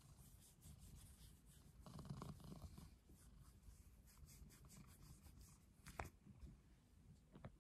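Fingers rubbing and scratching through a ginger tabby cat's fur as it is stroked under the chin and on the head, faint and close to the microphone, with a short tap about six seconds in.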